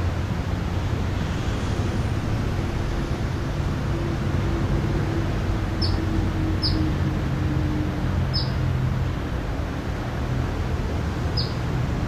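Steady traffic rumble with a low engine hum running through it. In the second half a bird gives four short high chirps, the last near the end.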